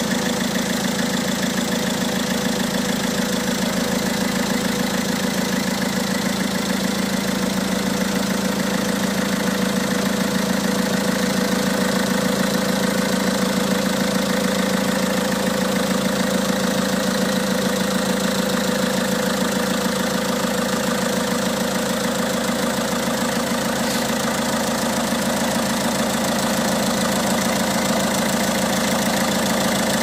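Peugeot 207's 1.6 HDi DV6ATED4 four-cylinder turbodiesel idling steadily, heard close up in the open engine bay.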